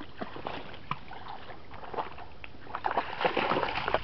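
Water sloshing and splashing as a dog moves through it, with scattered small knocks; the splashing grows busier and louder about three seconds in.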